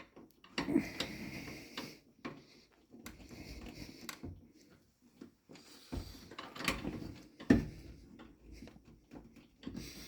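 Irregular hand-working noise on a washing machine's water inlet solenoid valve: plastic clicks, scrapes and rattles with a few sharper knocks as the valve is turned and pulled to free it.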